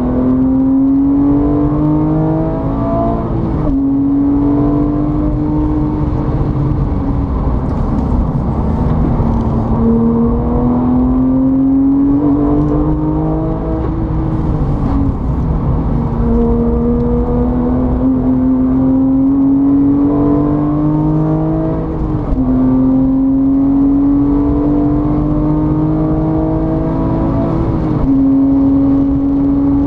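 Motor vehicle engine under load. Its pitch climbs steadily for several seconds and then drops sharply, over and over, like a vehicle accelerating through gear changes.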